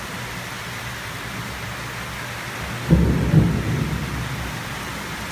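Rain falling steadily in a tropical thunderstorm. About three seconds in, a clap of thunder breaks in, loudest for about half a second, and rumbles away over the next second or so.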